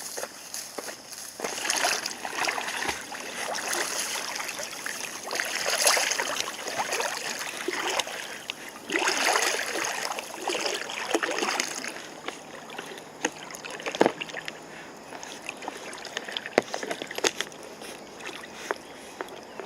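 Golden retrievers splashing and sloshing through river water in several bursts over the first two-thirds, then quieter with a few sharp knocks.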